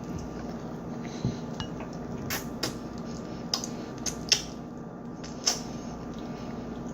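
Scattered light clinks and taps of cutlery and dishes, about seven of them spread over several seconds, with a faint steady hum underneath.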